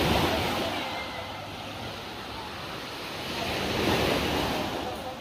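Small waves breaking and washing up a sandy beach. The surf swells twice, near the start and again about four seconds in.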